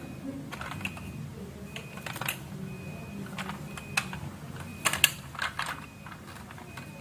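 Marbles rolling down a marble run track, with a steady low rolling rumble and irregular clicks and clacks as they hit the track, the sharpest cluster about five seconds in.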